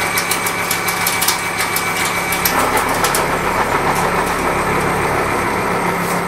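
Seco 335.25 disc milling cutter with indexable inserts cutting a slot in a steel block on a CNC milling machine: a steady machining whine with sharp crackling clicks through the first few seconds. About two and a half seconds in, the cutting noise turns denser and harsher.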